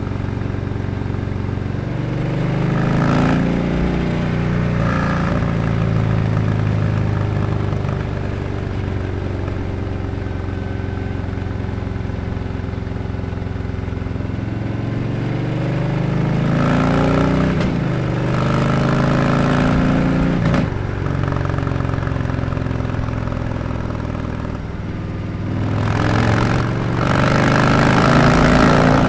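Harley-Davidson Sport Glide's Milwaukee-Eight 107 V-twin running through a Dr. Jekill & Mr. Hyde exhaust while riding: it accelerates with short breaks at the upshifts, cruises steadily, then pulls hard again. It is loudest near the end, in an underpass.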